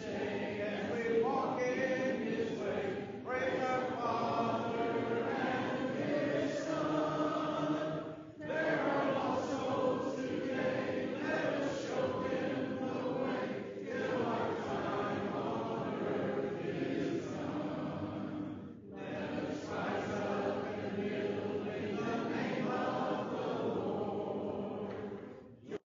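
Congregation singing an invitation hymn together a cappella, with no instruments. The singing runs in long phrases with short breaks about eight and nineteen seconds in, and stops abruptly at the very end.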